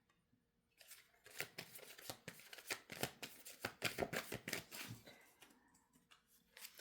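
Tarot cards being shuffled by hand: a quick, dense run of soft card rustles and flicks that starts about a second in and stops about five and a half seconds in.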